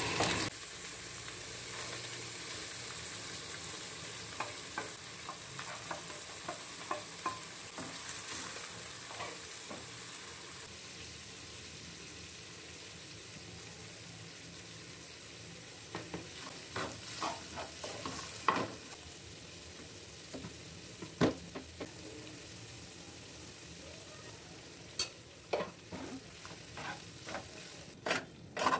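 Fried rice cooking in a pan: a steady sizzle of oil, with a spatula scraping and tapping against the pan as it stirs, more often in the second half.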